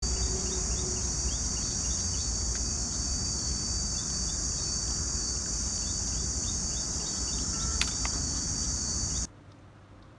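Steady, high-pitched chorus of insects, with a low rumble underneath and a single sharp click about eight seconds in. It all stops abruptly about nine seconds in.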